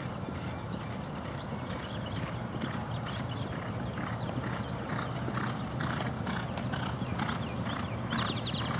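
Hoofbeats of a galloping Thoroughbred on a dirt training track, about two strides a second, growing slowly louder as the horse comes nearer.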